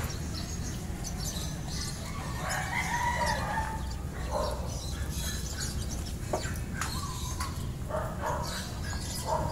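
A rooster crowing once, a long call about two and a half seconds in, among short calls from other chickens, over a steady low background hum.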